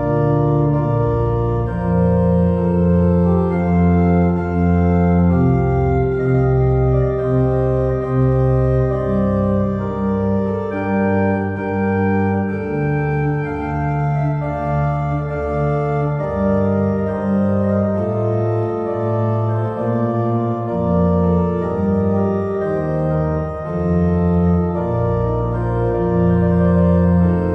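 Instrumental music of slow, sustained organ chords, with a moving bass line under held harmonies.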